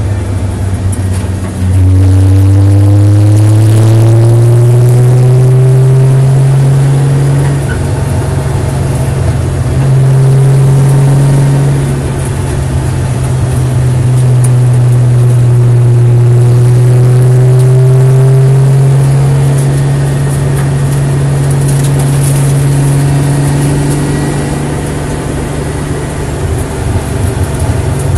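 Nissan 300ZX engine under hard acceleration on track, rising in pitch as it pulls from about two seconds in, breaking off for shifts or lifts and pulling again in a long steady climb, then easing off the throttle near the end. Heard from inside the stripped cabin.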